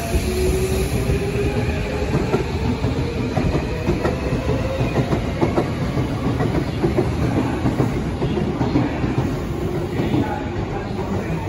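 Tokyo Metro 8000 series electric commuter train pulling into a station and slowing, its wheels clattering over the rails with a steady rumble. A falling whine from the traction motors fades out in the first second or so.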